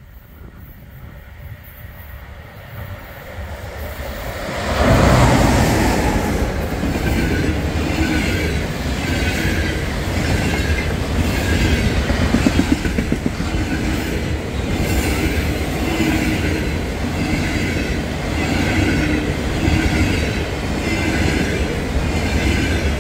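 EP20 electric locomotive hauling a train of double-deck passenger coaches passes close by. The sound builds as it approaches and jumps sharply as the locomotive goes by about five seconds in. Then the coaches roll past with a steady rush and a regular clatter of wheels, repeating about every second and a quarter.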